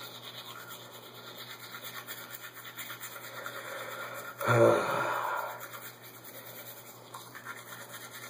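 Toothbrush scrubbing teeth in rapid back-and-forth strokes. About halfway through comes a brief, louder voiced sound from the brusher's mouth.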